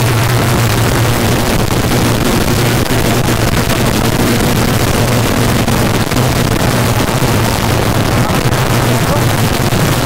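Rally car engine running hard at fairly steady high revs, heard from inside the cabin, with a constant rush of gravel and tyre noise.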